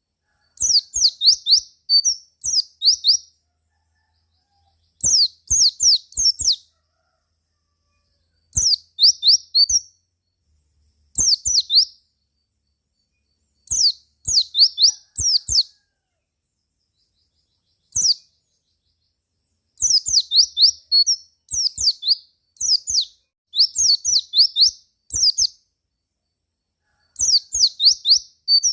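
White-eye (pleci) calling: runs of quick, high chirps, each one falling in pitch, repeated in short bursts with silent gaps of a second or two between them.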